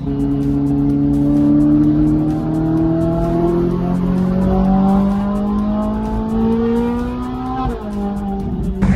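Ferrari 458 Italia's 4.5-litre V8 through a Fi valvetronic cat-back exhaust, accelerating hard with its pitch rising steadily for about seven seconds, then dropping sharply near the end and holding steady. Heard from inside the cabin.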